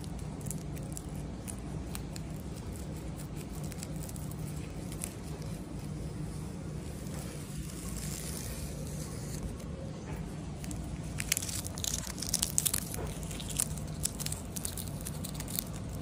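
Scarlet macaw's beak crunching and tearing at a thin clear plastic strip. There are scattered soft clicks, then a cluster of sharp crackling clicks about three-quarters of the way through, over a steady low hum.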